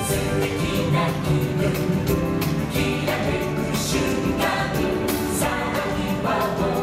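Music with singing voices, choir-like, over a steady beat.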